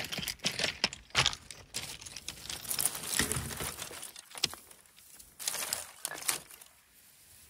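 Dry kindling, twigs and dry grass, being handled and laid in a pile for a fire, rustling with irregular sharp clicks and crackles of sticks knocking together. It is busiest in the first second and again around five seconds in, and dies down near the end.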